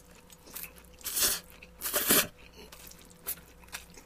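Close-up eating sounds: a man slurping noodles twice, about a second apart, then chewing with small wet mouth clicks.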